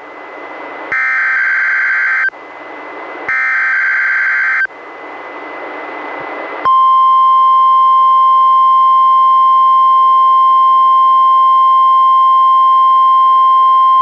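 NOAA Weather Radio Required Weekly Test played through a Reecom R-1630 weather radio: the last two of the three SAME digital header bursts, warbling data tones about a second long each with radio hiss between them, then about seven seconds in the steady 1050 Hz warning alarm tone starts and holds.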